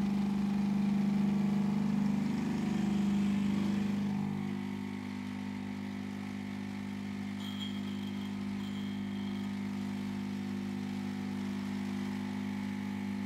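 ECM Casa IV espresso machine's vibratory pump buzzing steadily while it pulls a shot of espresso. The buzz drops slightly in level and its tone shifts about four seconds in.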